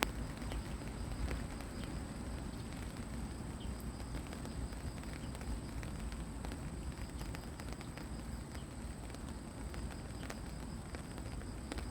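Gentle rain falling on fallen leaves and grass: a steady patter with many separate drops tapping on the leaves. A faint steady high tone runs beneath it.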